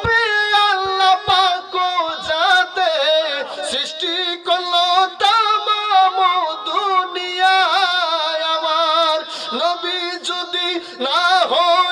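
Music from a Bangla devotional song: a melody of long held notes with a wavering vibrato over accompaniment, between sung lines of its refrain.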